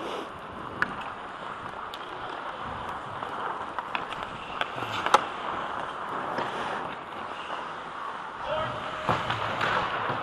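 Ice hockey play from the skater's helmet: a steady scrape of skate blades on ice with sharp clacks of sticks and puck scattered through, the loudest about five seconds in.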